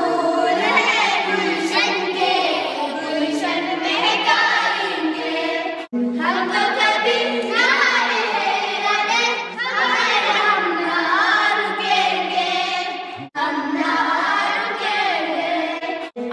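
A group of schoolchildren singing a prayer song in Urdu together, with two short pauses between lines.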